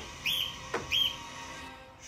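Bird-like chirps, about two a second, each a quick rising-then-falling whistle, dying away after the first second.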